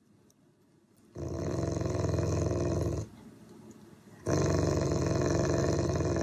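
Dog growling: two long, loud growls of about two seconds each, the first starting about a second in and the second after a short pause.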